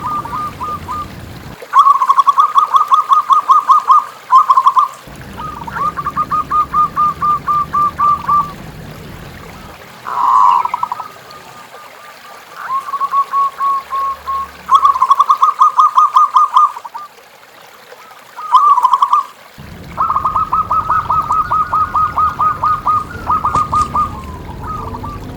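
Zebra doves (perkutut) cooing in repeated bouts of rapid staccato notes, each bout lasting a few seconds, with short pauses between them.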